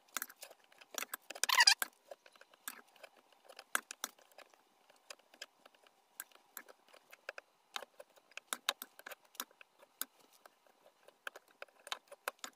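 Two metal forks clicking and scraping against each other and on a cutting board as they pull cooked chicken breast apart: irregular light taps, with a brief longer scrape about one and a half seconds in.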